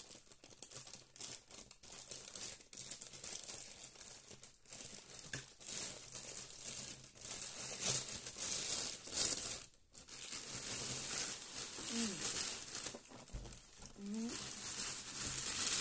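Plastic mailing bag crinkling and rustling as it is handled and pulled open off a boxed parcel. The crinkling grows louder after the first few seconds and stops briefly just before the ten-second mark.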